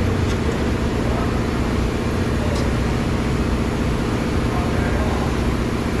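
Steady mechanical drone of a running engine or motor, even throughout, with a faint light click about two and a half seconds in.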